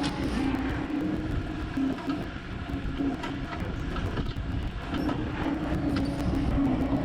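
John Deere 325G compact track loader working, its diesel engine running steadily under load with clicks and clanks from the tracks and bucket over it. The engine note drops for a few seconds in the middle, then comes back up.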